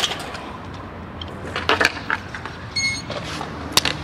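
Stunt scooter wheels rolling on concrete, with several sharp clacks of the scooter hitting the ground. The loudest clack comes right at the start, and a brief high-pitched squeak comes just before three seconds in.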